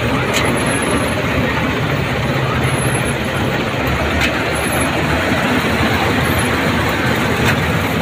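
Preet 987 combine harvester running with its header cutter bar and reel engaged, cutting soybean. A loud, steady machinery drone, heard close up from on board, with a few faint ticks.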